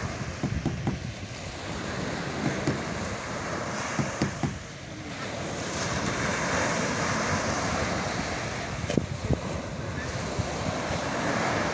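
Small waves breaking and washing up a sandy beach in a steady rush, swelling louder about six seconds in, with gusts of wind buffeting the microphone.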